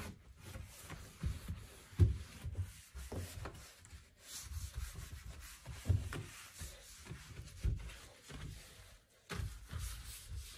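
A wet cloth rubbed back and forth in uneven strokes over a white wardrobe shelf, with soft knocks against the board and a louder knock about two seconds in.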